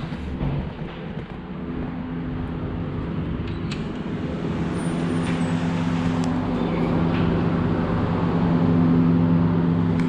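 A steady motor hum under a rushing noise, growing slowly louder, with a few light clicks.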